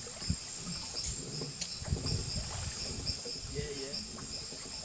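Insects chirping: a steady, high-pitched, pulsing chorus of repeating chirps, over a low rumble with a few soft knocks.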